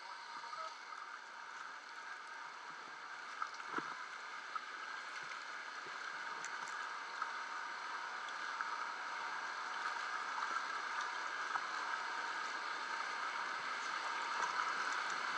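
Steady rushing and gurgling of water around a half-sunken pontoon boat, growing gradually louder, with a few faint knocks.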